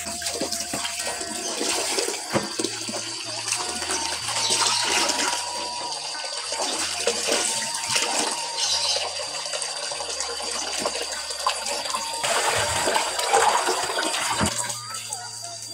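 Tap water running and splashing into a basin in a stainless-steel sink while hands swish and rinse bunches of water spinach and spinach leaves.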